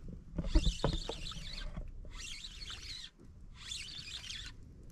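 Small spinning reel cranked in short bursts, a raspy whirring about once every one and a half seconds, four times, as a microjig is worked with jerks of the rod. Dull low knocks near the start.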